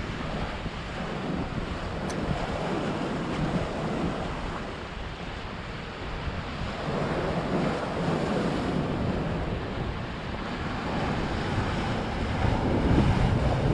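Sea waves breaking and washing over shoreline rocks, with wind buffeting the microphone. The surf swells louder every few seconds as each wave comes in.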